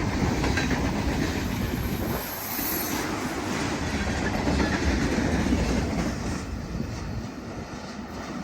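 Freight train cars rolling past, their steel wheels clattering over the rail joints, the sound fading near the end.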